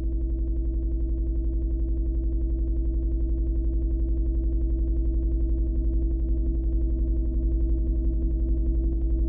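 Airplane engine drone: a steady low hum with a fast, even pulse that does not change pitch.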